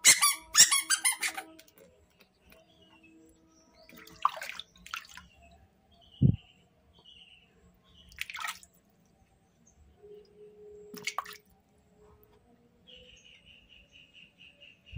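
A squeaky rubber duck toy squeezed in quick high squeals for about the first second and a half. Then scattered splashes and sloshes of water in a plastic basin as a baby monkey is washed, with a dull bump or two and a run of quick high chirps near the end.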